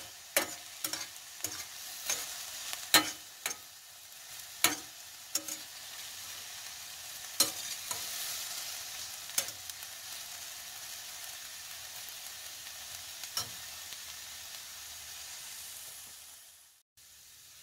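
Diced vegetables frying in a stainless steel skillet with a steady sizzle, while a metal spatula scrapes and clinks against the pan as they are stirred. The clinks come often in the first half and only now and then later. The sizzle drops away abruptly near the end.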